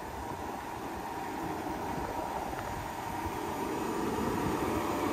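John Deere 7230 tractor's diesel engine running while pulling a vacuum planter, growing steadily louder as the tractor sets off to plant.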